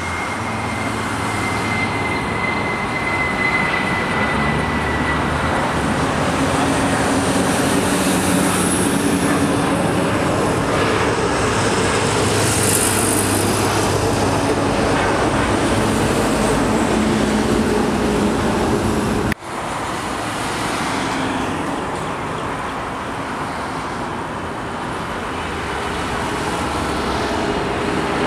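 Airbus A320 jet engines at takeoff thrust as the airliner climbs out: a steady loud roar with a high whine falling slightly over the first few seconds. A sudden break about two-thirds through, then the roar of a second A320, with CFM56 engines, climbing away.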